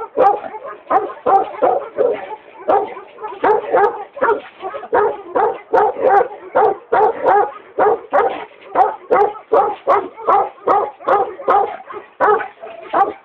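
Tibetan mastiff barking over and over in a steady run, about two to three barks a second.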